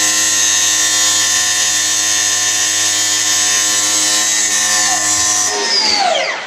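Milwaukee M18 FUEL 9-inch brushless cordless cut-off saw with a steel-cutting blade grinding through a steel T-post, with a loud, steady high whine and hiss. About five and a half seconds in, the saw is let off and the blade spins down with a falling whine.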